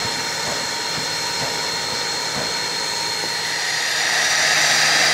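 Steam locomotive working along the track: a steady hiss of steam with faint exhaust chuffs about twice a second, the hiss growing louder near the end.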